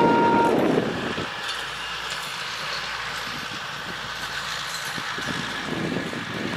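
Tatra M 290.0 'Slovenská strela' railcar running past along the track with a steady mechanical hum. Right at the start, a short horn note sounds over wind buffeting the microphone, then the wind noise drops away about a second in.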